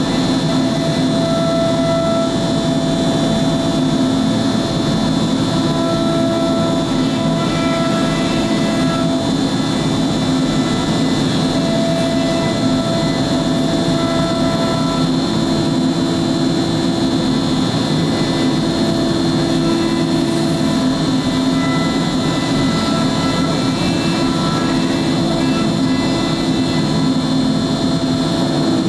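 MultiCam 5000 Series CNC router spindle running and cutting through a plywood sheet: a steady, loud whine and rush, with a few pitched tones that come and go every few seconds as the cutter moves along the sheet.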